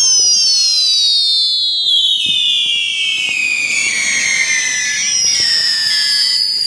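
Several whistling fireworks shrieking at once: high, shrill overlapping whistles that slowly fall in pitch throughout, with faint pops and crackles of other fireworks underneath.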